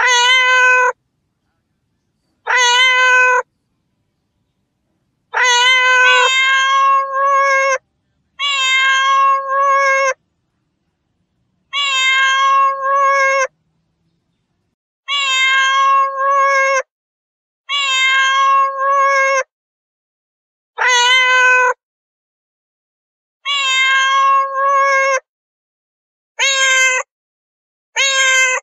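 Domestic cat meowing again and again: about a dozen long meows, each lasting a second or two, with dead silence between them.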